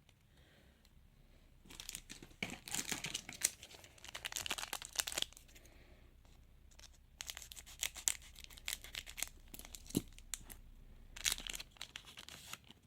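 A trading-card packet being torn open and its wrapper crinkled, in three crackly stretches, with a single sharp click about ten seconds in.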